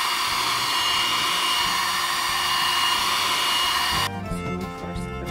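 Electric heat gun running, a steady fan hiss with a thin high whine, blowing hot air onto a plastic bucket to soften it; it stops abruptly about four seconds in.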